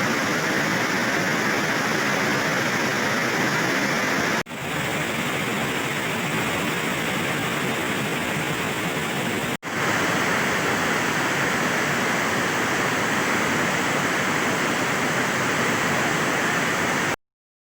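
Waterfall: a steady, even rush of falling water, cut off for an instant twice and stopping suddenly near the end.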